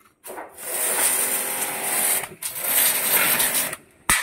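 Shakti S5 electric high-pressure washer (1900 W) spraying in trigger-pulled bursts: the motor-driven pump hums under the hiss of the water jet. It breaks off briefly about two and a half seconds in and stops again near the end.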